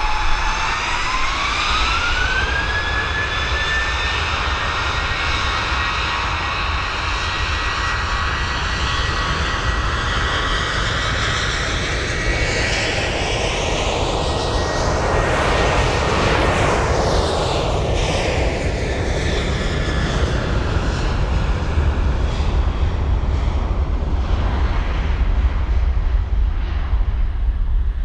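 Boeing 737-800's CFM56-7B turbofan engines spooling up to takeoff thrust, the whine rising over the first few seconds and then holding steady. The jet noise continues as the airliner accelerates down the runway and passes, with sweeping, phasing tones as it goes by and a deep rumble that grows near the end as it rotates.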